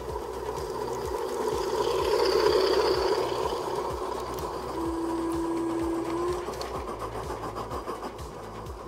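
G-scale model train, a locomotive hauling tank wagons, running past close by: the rumble of its wheels on the track swells to a peak and fades, with regular clicking throughout. A steady tone sounds for about a second and a half midway.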